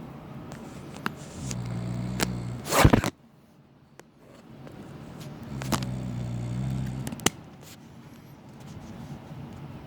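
A man snoring heavily, a deep snore on each breath about every four seconds: two full snores, with a third starting at the end. A brief loud scraping noise, the loudest sound here, comes just before the three-second mark and is followed by a moment of near silence.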